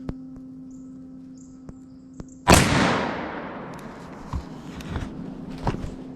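A single gunshot about two and a half seconds in, loud and sudden, with its report echoing away over a second or so, followed by a few faint knocks.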